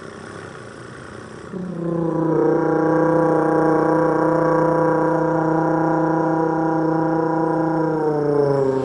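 A person's voice holding one steady, buzzy hummed note, imitating the mid-range part of a V10 engine's sound. It starts about one and a half seconds in, holds for about seven seconds and dips slightly in pitch near the end.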